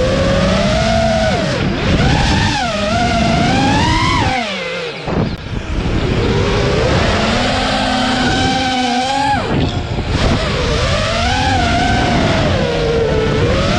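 FPV quadcopter's brushless motors and propellers whining, the pitch rising and falling with the throttle and dropping away sharply about five seconds in and again near ten seconds.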